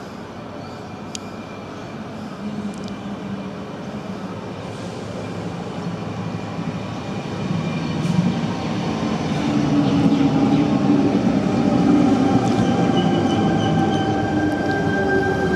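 Sydney Trains double-deck electric passenger train running into the station along the platform, growing steadily louder as it arrives. A steady high whine joins the rumble in the last few seconds.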